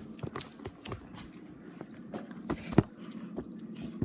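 A string of short knocks and clicks, one sharp knock about three seconds in much louder than the rest.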